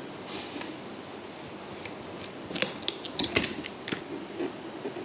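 Bottle gourd being cut against a floor-mounted curved kitchen blade: short crisp cutting strokes, a few faint ones early and a quick cluster past the middle.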